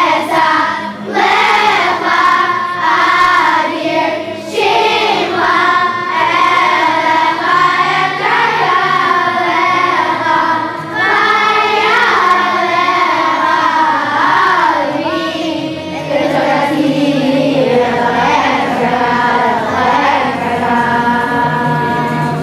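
A children's choir singing a song together, with musical accompaniment underneath.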